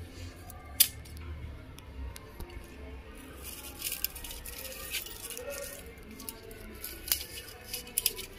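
Scissors clicking shut a few times as they snip tomato stems. The sharpest click comes about a second in, and two more come near the end.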